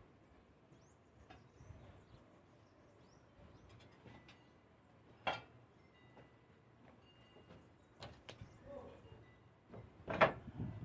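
Quiet background with faint bird chirps, broken by a sharp knock about five seconds in and a few more clicks and knocks near the end.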